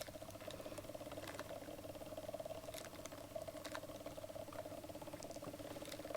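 Antique smoking monkey automaton's motor and linkage running: a faint, steady, fast-fluttering whir with a few light clicks, as the motor drives the bellows that draw smoke through the cigarette.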